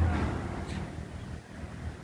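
A passing road vehicle's engine hum fading away.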